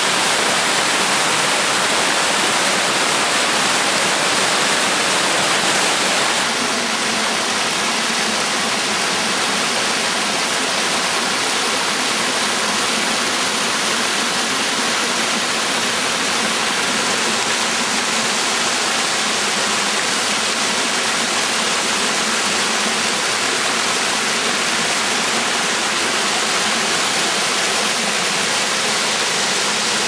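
A waterfall's water rushing and splashing over rocks: a steady, even rush, dropping slightly in level about six and a half seconds in.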